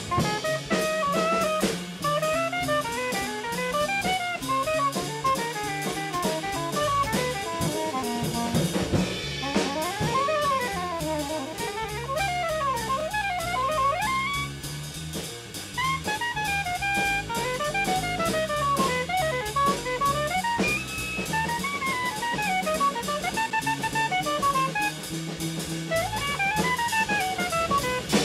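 Jazz quartet playing: a saxophone runs fast, rising and falling phrases over busy drum kit and a walking bass line.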